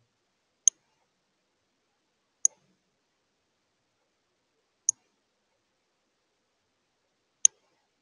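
Four short, sharp, high clicks from a male northern cardinal at a window feeder, evenly spaced about two and a half seconds apart.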